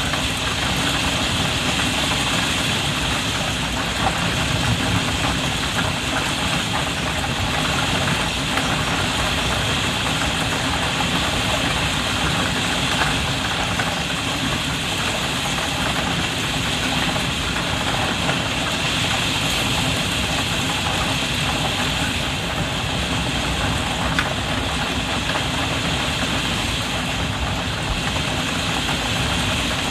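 Heavy rain falling on a Velux skylight, heard from inside the room below: a dense, steady patter of drops on the glass, with a few louder single drops standing out now and then.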